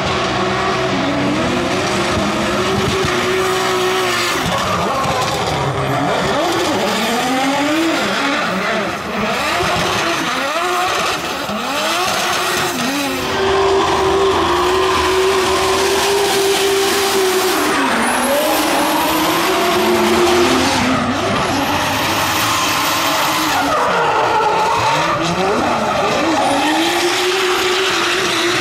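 BMW E46 drift cars at full throttle in a slide, engines revving up and down over and over as the drivers work the throttle, with tyres screeching and skidding throughout.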